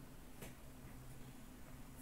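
Near silence: faint room tone with a low steady hum and a single faint click about half a second in.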